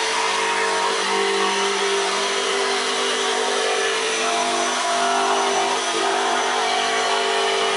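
An electric power tool's motor running at a steady speed, with a constant hum and hiss and no change in pitch.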